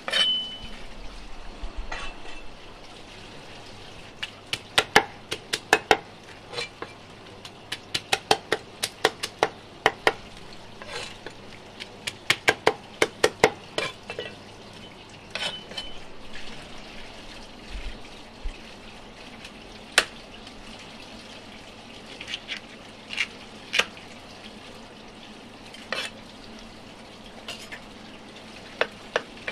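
Cleaver chopping on a thick wooden chopping block, splitting giant river prawns: quick runs of chops, about four a second, through the first half, then single chops every second or two. A blade gives a short metallic ring at the very start and again about halfway.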